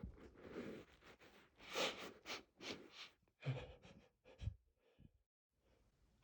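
A man's short, breathy gasps and sniffs, about eight in quick uneven succession: the catching breaths of a sneeze building after sniffing lilies he is allergic to. They stop about a second and a half before the end.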